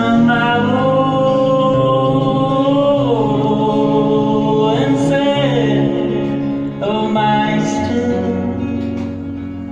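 Man singing long, held notes that slide between pitches, accompanied by an acoustic guitar.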